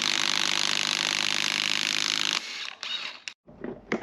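Impact wrench hammering on the crank pulley bolt, a fast steady rattle that stops about two and a half seconds in as the bolt comes loose, followed by a couple of brief quieter rattles.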